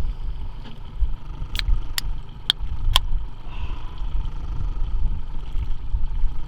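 Low, fluttering rumble, with four sharp clicks about half a second apart a second or two in.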